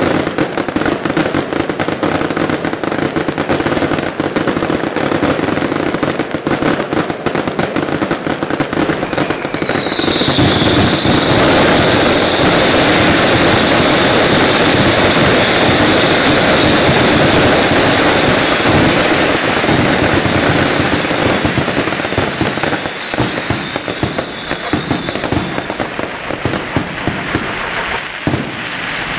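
Fireworks display going off continuously: dense rapid crackling and bangs. About nine seconds in, a high whistling tone joins, dipping slightly in pitch and then holding steady until a few seconds before the end.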